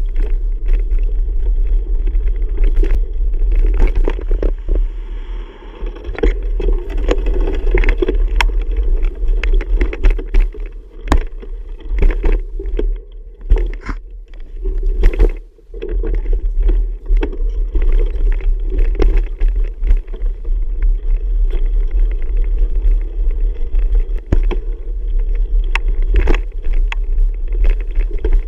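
Bicycle ride with wind buffeting the microphone in a steady low rumble, broken by frequent irregular knocks and rattles as the bike rolls over rough ground.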